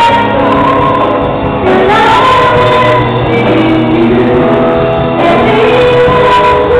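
Live Christian worship song: a woman sings held, gliding notes into a microphone over a small band with acoustic guitar.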